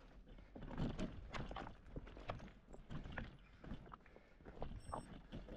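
Irregular crunching and knocking on loose, rocky alpine ground: a rapid, uneven run of short clicks and knocks over a low steady rumble.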